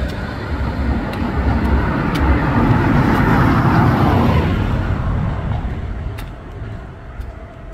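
A vehicle passing close by: a rumbling, hissing noise that swells to a peak about halfway through, then fades away over the next couple of seconds.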